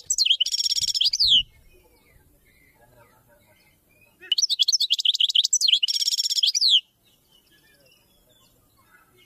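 A small songbird singing two loud bursts of rapid, high-pitched trills with quick downward-sweeping notes. The first phrase ends about a second and a half in, and the second runs from about four to seven seconds.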